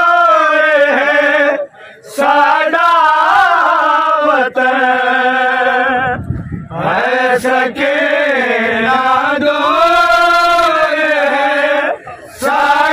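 A group of men chanting a noha, a Shia mourning lament, loud and in long held sung lines. The singing breaks off briefly about two seconds in and again near the end.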